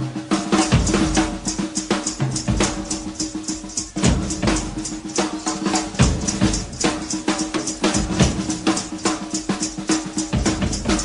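Rock drum kit solo: a fast, dense run of strikes on the snare and bass drum.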